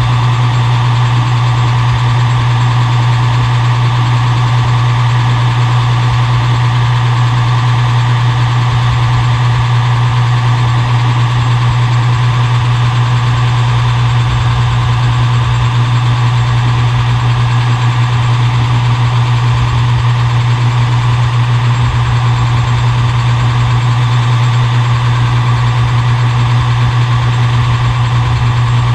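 Metal lathe's electric motor running steadily with a loud, constant low hum.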